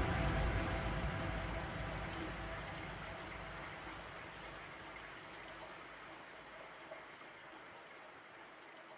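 Steady rain-like hiss fading out slowly, almost to silence by the end.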